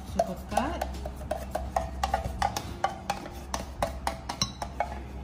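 Background music with a quick, steady percussive beat and short pitched notes.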